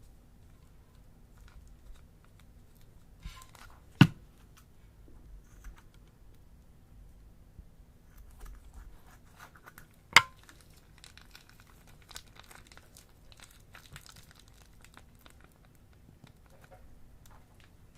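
Slime being handled and stretched close to the microphone: a scatter of small crackles, with two sharp pops, one about four seconds in and one about ten seconds in.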